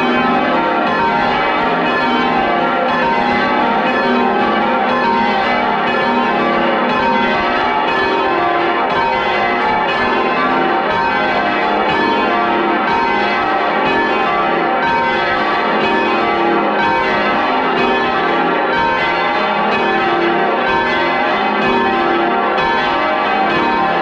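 A ring of ten full-circle church bells sounding in a rapid, continuous stream of strikes as they are rung down. The sound is loud and close, heard from inside the bell chamber.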